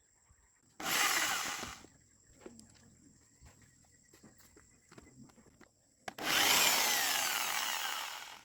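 Two bursts of steady hissing, rushing noise: a short one about a second in and a longer one starting about six seconds in that slowly fades. Faint small clicks and taps come between them.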